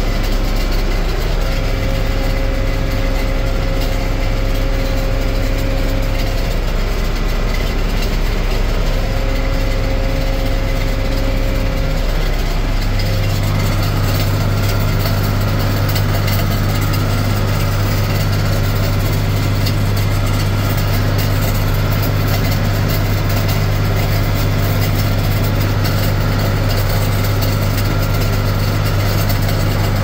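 John Deere 4255 tractor's six-cylinder diesel running steadily, driving a John Deere 435 round baler on the PTO. About 13 seconds in, the engine hum grows louder and fuller.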